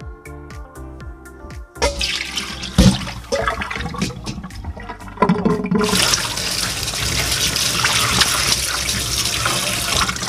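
Cold tap water running steadily onto raw chicken drumsticks in a perforated stainless steel colander, starting about six seconds in. Before it, from about two seconds in, there is splashing with a knock.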